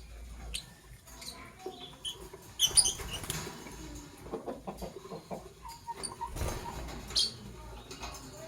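Lovebirds giving short, shrill chirps at irregular intervals. The loudest is a quick cluster of calls about three seconds in. Soft scratching and small knocks come in between.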